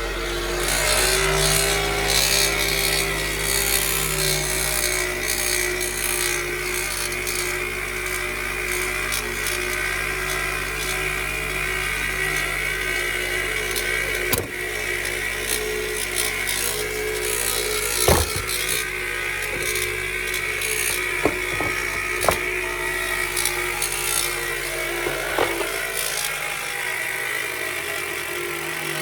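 Toyota Noah (ZRR70) engine running with a loud abnormal noise from a failing alternator: a steady whine over a rough, rasping noise, with a few sharp clicks.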